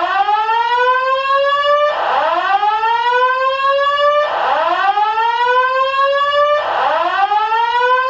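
Building fire alarm's evacuation tone: a loud, repeating rising whoop. Each sweep climbs in pitch for about two seconds and then restarts, between the system's spoken evacuation messages.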